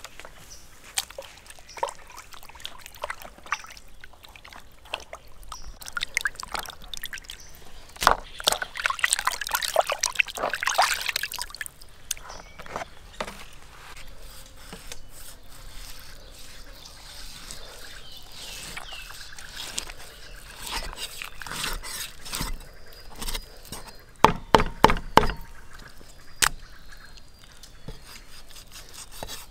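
Food-preparation sounds: liquid trickling and sloshing, with scattered clicks and knocks from utensils. A busier stretch of sloshing noise comes about eight seconds in, and a quick cluster of sharp knocks comes about twenty-four seconds in.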